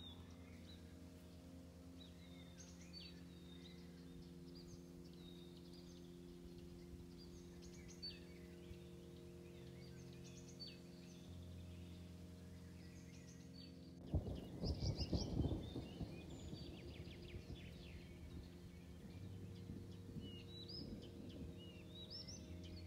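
Small birds chirping in short, scattered calls over a faint steady hum. About two-thirds of the way through, a short, loud low rumble with crackle comes in and dies away over a few seconds.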